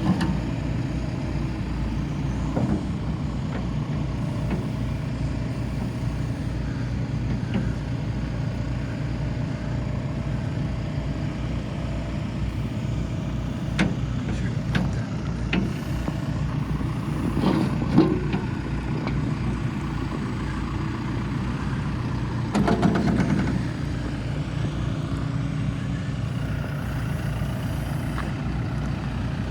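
A John Deere backhoe loader's diesel engine running steadily, with a few sharp knocks and clanks partway through, the loudest about two-thirds of the way in, followed by a brief burst of clatter.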